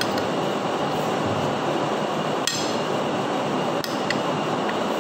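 A metal fork clinking against a plate of food several times, the sharpest strike about halfway through and a few lighter ones near the end, over a steady background noise.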